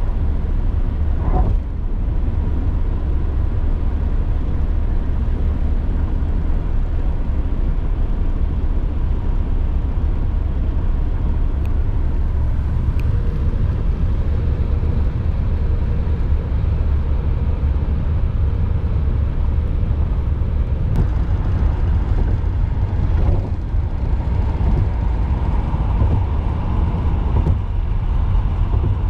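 Steady low rumble of a car driving on a highway, heard from inside the cabin: tyre and engine noise with no break.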